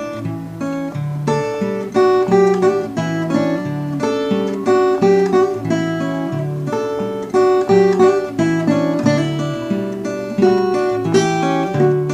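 Background music led by acoustic guitar: a quick run of plucked notes over a moving bass line.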